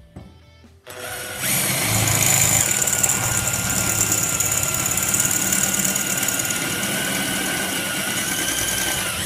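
Electric power tool running steadily under load on metal, starting about a second in and running for about eight seconds with a steady whine, dropping slightly in pitch just before it stops.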